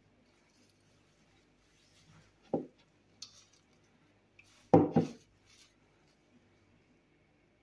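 A few knocks and clatters of kitchen things being handled, the loudest a double knock about five seconds in.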